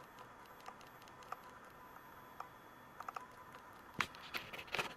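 Faint handling noise: scattered small clicks and light rustles of a hand turning a wound coil on its plastic bobbin, with a few sharper clicks about four seconds in.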